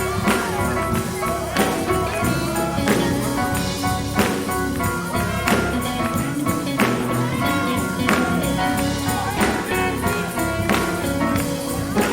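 Live gospel band playing an instrumental stretch, with tambourine, sustained chords and a strong accented beat about every second and a quarter.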